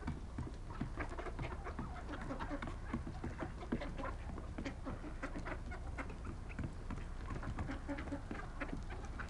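A mixed flock of mallard ducks and wild turkeys feeding together, with a steady chatter of many short overlapping calls.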